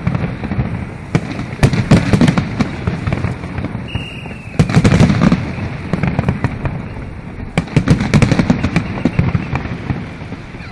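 Aerial fireworks display: shells bursting in repeated volleys of deep booms and sharp crackling, several reports close together in each volley.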